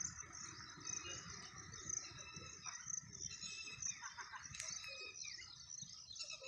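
Outdoor ambience of steady insect chirring with a few short bird calls over a low, even rush of water from the rain-swollen stream.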